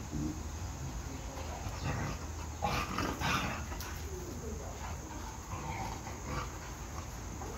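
Dogs vocalizing during play: a few short sounds about three seconds in, then thin whines rising and falling in pitch.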